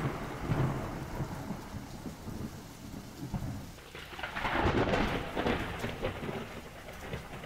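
Thunder rumbling over steady rain, with a louder roll of thunder swelling about four seconds in and dying away.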